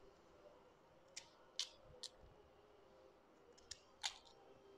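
Small knife peeling sweet potato skin by hand: a few short, quiet scrapes and clicks against near silence, the loudest near the end.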